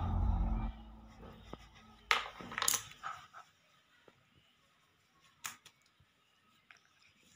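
Background music that cuts off within the first second, followed by a few scattered sharp clicks and taps, the clearest about two seconds and five and a half seconds in.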